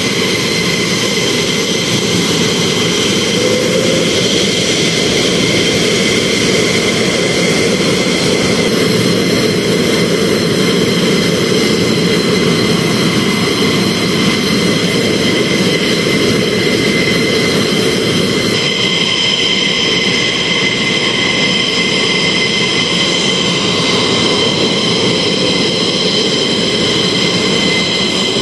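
F-15E Strike Eagle twin jet engines running at taxi power: a loud, steady rush with a high, even whine. The sound shifts abruptly twice, about 9 and 18 seconds in.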